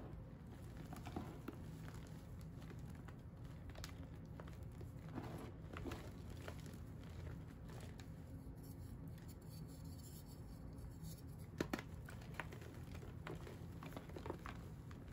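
Hands crushing and crumbling dyed-and-dried chalk blocks into powder: soft, scattered crunches and crackles over a steady low hum, with a couple of sharper snaps a little under twelve seconds in.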